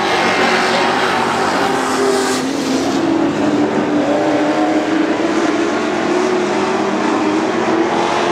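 Dirt track pro class race trucks running hard around the oval, several engines at once, their pitches falling and rising as they go through the turns.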